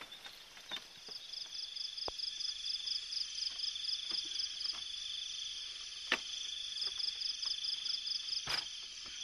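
Night insects calling: a steady high-pitched ringing, with a faster pulsing trill that comes in two bouts of a few seconds each. A few sharp clicks are scattered through it.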